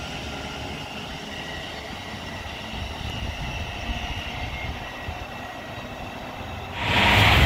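Thameslink Class 700 electric multiple unit running away from the platform: a whine of several steady tones from its traction equipment over wheel and rail rumble, dying away as it recedes. Near the end it cuts suddenly to a much louder rushing noise.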